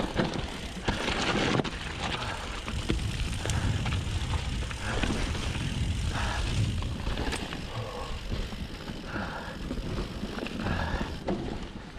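Bird Aeris 120 full-suspension mountain bike descending a loose dirt trail: knobbly tyres, a Schwalbe Magic Mary at the front, rolling and scrabbling over dirt and roots, with the bike rattling over the bumps and a steady low rumble underneath.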